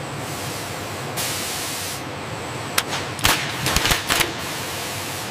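Steady assembly-hall background noise. About a second in comes a short hiss lasting under a second. Around three to four seconds in there is a quick cluster of sharp clicks and knocks.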